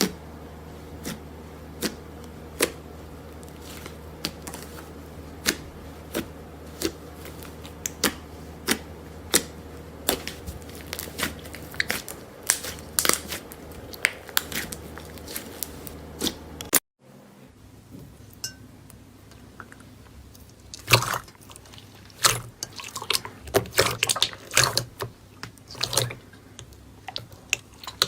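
Slime being poked and squeezed by hand: sharp pops and clicks about once a second over a steady low hum. After a cut about two-thirds of the way in, the pops give way to denser crackling.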